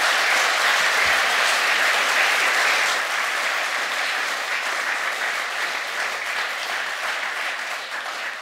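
Audience applauding, strongest in the first few seconds and slowly tapering off.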